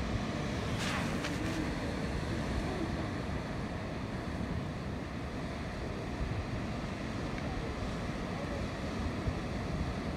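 Steady outdoor noise of wind on the microphone mixed with the wash of surf.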